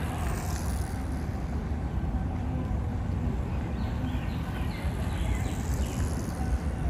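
Steady low rumble of wind on a handheld phone's microphone outdoors, with a few faint high chirps from about four to six seconds in.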